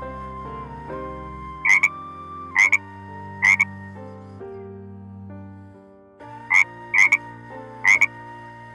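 Six short, loud animal calls in two groups of three, over soft background music.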